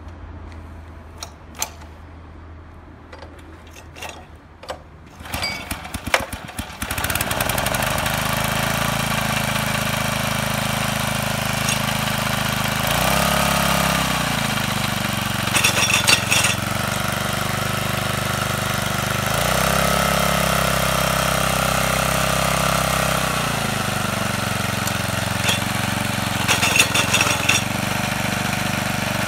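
Kubota Midy TMA21 mini tiller's small 2.2 hp engine starting about seven seconds in, after a few clicks and rattles, then running steadily. Its pitch dips and recovers twice, with two short clattering bursts along the way.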